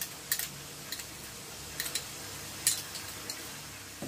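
Scattered light clicks and ticks from the frying pan of simmering chili garlic sauce and the utensils at it, five or six in all, over a faint steady hum.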